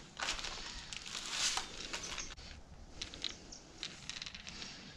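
Clear plastic bag crinkling and rustling as the tubes and parts of a hand fluid pump are pulled out of it, then a few light clicks and taps as the plastic pump parts are handled.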